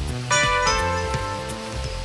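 Background music: a held instrumental chord that comes in about a third of a second in, over a repeating bass line and a steady beat.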